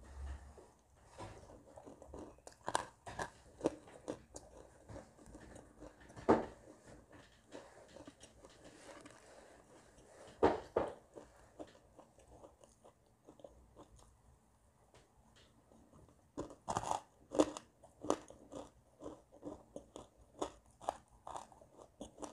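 Close-up crunching and chewing of baked edible clay pieces dusted with clay powder. Sharp, loud crunches come a few seconds apart as pieces are bitten, with quieter crackly chewing between.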